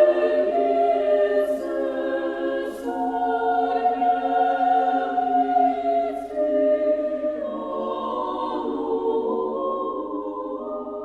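A choir singing a slow chant in long held notes, several voices together; a few sibilant hisses stand out from the words. It is plausibly Armenian church chant.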